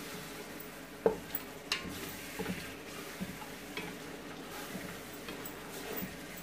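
Wooden spoon stirring a frying onion and spice masala in an aluminium stockpot, scraping and knocking against the pot wall, with a light sizzle. The sharpest knock comes about a second in.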